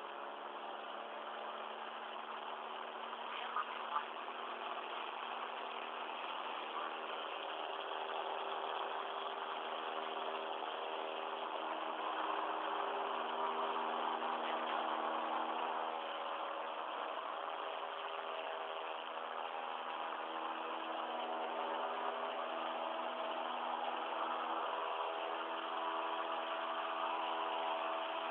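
Small propeller airplane's engine running steadily, heard from inside the cabin. The drone grows louder over the first dozen seconds, then holds, with a couple of brief clicks a few seconds in.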